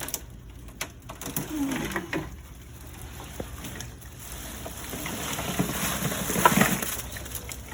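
Live crawfish being dumped from a sack into an ice chest: a scratchy clatter and rustle of shells that builds to its loudest about six seconds in, then eases off.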